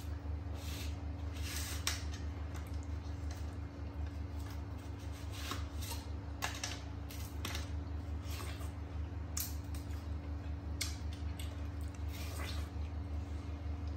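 Crisp, wet crunching of watermelon, in short irregular bursts, as a young macaque bites and chews slices and a knife cuts through a whole melon. A steady low hum runs underneath.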